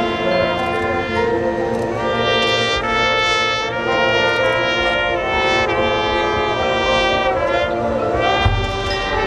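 Marching band's brass section playing held chords that change every second or two, with a low boom about eight and a half seconds in.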